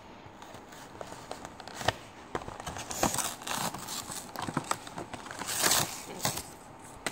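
Clear plastic packaging and cardboard box crinkling and crackling as a plastic pencil box is pulled out, with irregular clicks and louder rustles about three and six seconds in.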